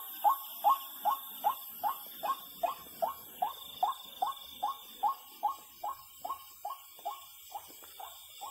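An animal calling in the dark: a short, upward-sliding note repeated steadily about two and a half times a second, slowly growing fainter, over a steady high-pitched drone.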